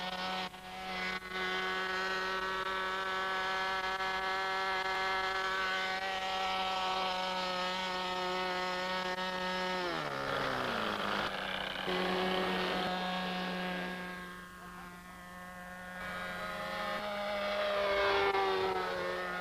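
Engine of a radio-controlled Mick Reeves Spitfire model running steadily at high revs on the ground, its note dropping sharply about halfway through. Later the model's engine fades, swells again and falls in pitch near the end as it flies past.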